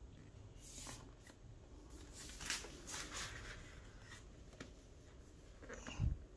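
Packaging being handled during an unboxing: short bursts of rustling with a few light clicks, then a dull thump about six seconds in.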